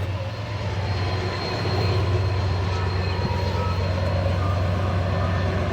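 Norfolk Southern train coming down a steep mountain grade: a steady low drone with a thin high whine over it, the very creepy unusual noise the train makes on the descent.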